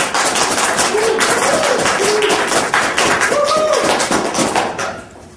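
Audience applauding, with a few voices calling out over the clapping. The applause dies away near the end.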